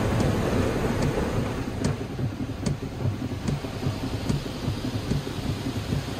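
Ryko Voyager II car wash gantry passing the car, heard from inside the cabin: a rushing wash of water spray over a low rumble, heavier for the first couple of seconds and then easing, with faint ticks about every second.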